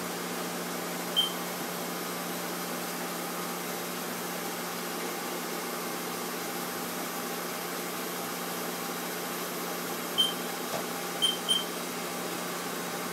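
Haas SL-30 CNC lathe running with a steady machine hum. Four short, high beeps stand out over it: one about a second in and three close together near the end.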